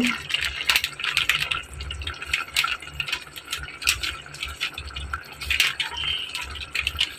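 Tomato-onion masala gravy simmering in a pot, bubbling with many small irregular pops and a soft sizzle.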